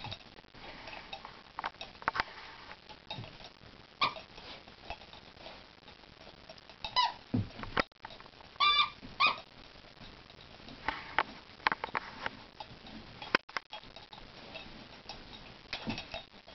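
Two Basenjis worrying and chewing a plush monkey toy: scuffling, rustling and tearing of fabric and stuffing, with claws on carpet. The toy's squeaker gives a few short, high squeaks around the middle, once and then a quick run of two or three.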